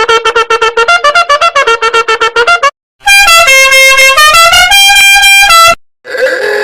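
Meme sound effects played one after another. First comes a fast run of short, clipped musical notes, about eight a second. After a brief break comes a loud, brassy horn-like tune of held notes changing in pitch. Near the end another effect with gliding tones begins.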